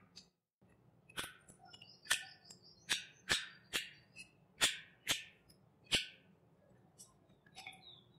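Close-miked wet chewing and lip-smacking while eating rice with chicken curry by hand: a sharp, wet smack about every half second, thinning out near the end.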